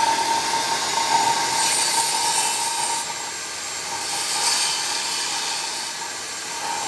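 Portable jobsite table saw running at speed with a high-pitched motor whine while a board is fed through the blade and ripped. The whine sags from about halfway through and comes back up near the end as the blade takes the load of the cut.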